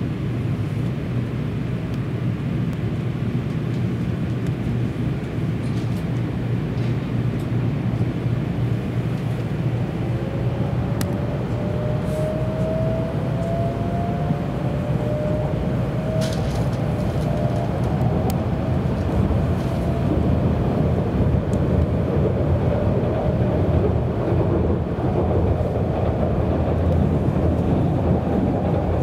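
Shinkansen train heard from inside the carriage as it pulls away and accelerates. There is a steady running rumble, and from about a third of the way in a thin whine from the traction motors rises slowly in pitch as the train gathers speed. The sound grows a little louder towards the end.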